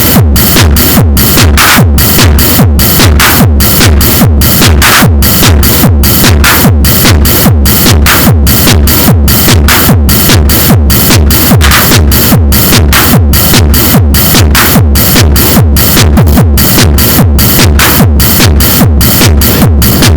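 Erica Synths Techno System modular synthesizer playing loud techno: big distorted beats on a steady, even pulse over heavy bass.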